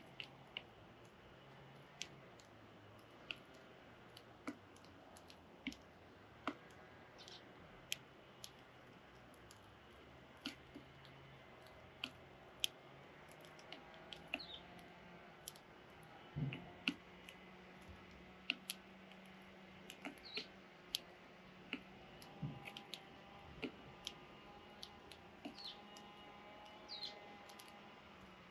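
Young sparrows, faint: scattered sharp taps and clicks at an irregular pace, with a few short, high chirps now and then.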